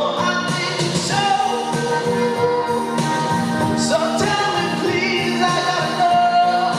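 A singer performing a pop song over instrumental accompaniment, holding long notes.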